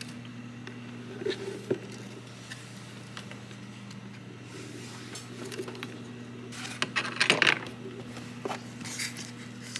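Light metallic clicks and clinks of pliers and hand work on hose clamps and a connector, scattered at first and bunched together about seven seconds in, over a steady low hum.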